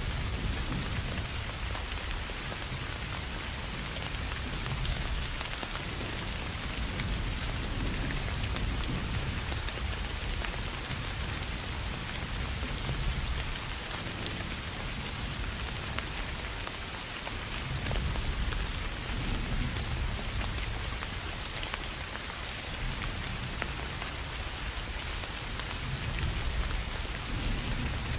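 Steady soft rain falling on grass and rice fields. Low rumbles swell up a few times, around the middle and near the end.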